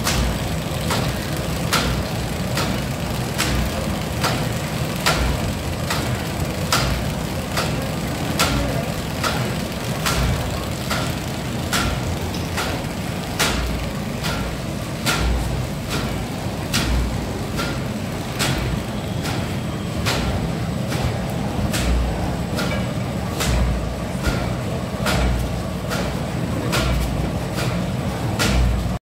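Fully automatic paper bag making machine running: a steady low mechanical hum with a sharp, regular clack repeating a little faster than once a second as the machine cycles.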